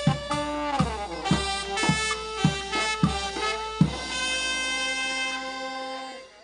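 Brass band of saxophones, trumpet, a large brass horn, bass drum and snare playing a slow tune over a steady drum beat. Near four seconds in the drum stops and the band holds a final chord that fades out shortly before the end.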